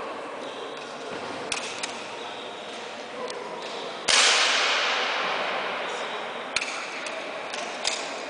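Air rifles firing: a series of sharp cracks, with one much louder shot about four seconds in that rings on in the hall's echo for a couple of seconds.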